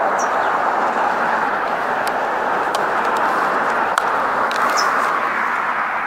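Steady rushing outdoor background noise, like traffic, with a few faint clicks and two short high bird chirps, one near the start and one near the end.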